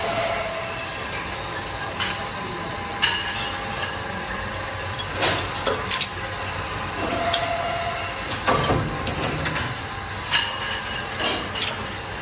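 Metalworking workshop noise: a steady machinery hum with irregular sharp metallic clanks and clinks every second or two, some ringing briefly, as of steel tubes knocking together and being struck.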